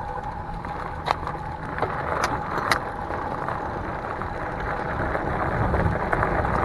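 Fat knobby tyres of an electric bike rolling over a gravel path, a steady crunching rush that grows louder as the bike picks up speed. A few sharp clicks sound in the first three seconds.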